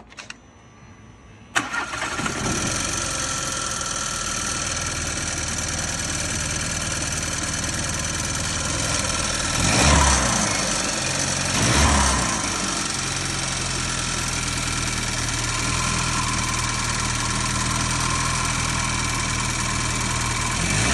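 Seat Leon 1.5 TSI (DACA) turbocharged four-cylinder petrol engine starting about a second and a half in, then idling with a ticking, rattling noise, briefly revved twice around ten and twelve seconds in. The owner has ruled out the turbo actuator as the cause of the ticking.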